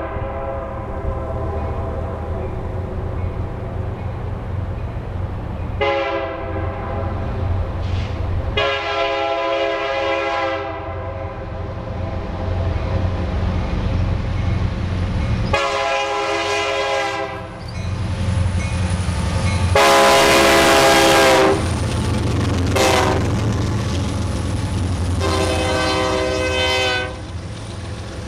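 Diesel freight locomotive's air horn sounding a chord in a series of blasts over the steady rumble of the approaching diesel engines: several long blasts, the loudest about two-thirds through, ending in long, long, short, long, the grade-crossing signal.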